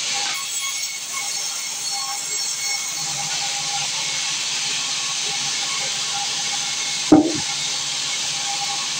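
Sawmill machinery running with a steady hiss-like noise and faint steady tones. About seven seconds in there is one brief, loud knock.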